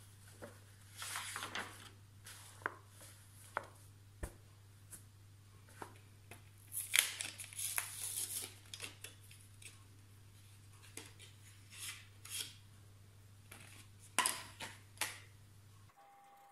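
Sketchbook pages being turned and rustled, with crinkling and small clicks and taps as things are handled on the table; the busiest crinkling is around the middle. A low steady hum sits underneath and cuts off near the end.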